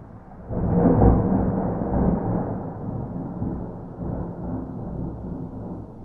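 Distant thunder rumbling: a low roll that swells suddenly about half a second in, peaks about a second in, then slowly dies away, with a smaller second swell near four seconds.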